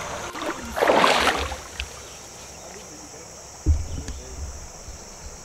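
Riverside outdoor sound: a steady high chirring of insects, with a short rush of water noise about a second in and a dull low thump near four seconds as the camera is handled.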